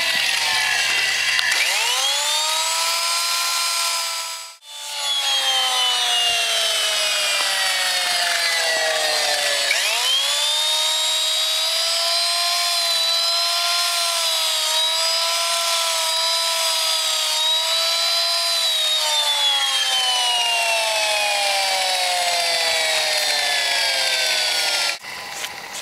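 Electric right-angle sander with a sanding disc grinding the fiberglass skin of a boat transom: a high motor whine that climbs as the disc spins up and slowly sags in pitch as it is pressed into the work. This happens twice, with a brief break about four and a half seconds in, and the sound cuts off suddenly near the end.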